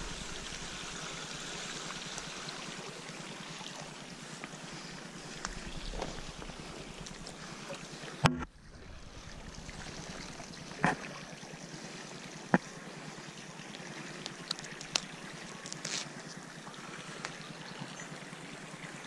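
Steady rushing wind noise on an action-camera microphone, with a few sharp clicks and knocks from handling the fishing rod and unhooking a small bass. One loud knock comes about eight seconds in.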